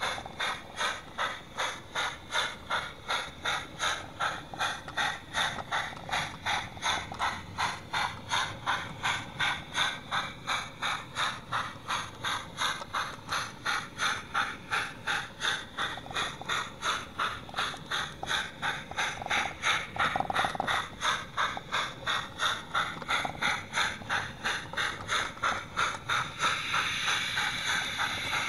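00 gauge model train running along its track, with an even mechanical clicking about three times a second. Near the end the clicking gives way to a steadier hiss.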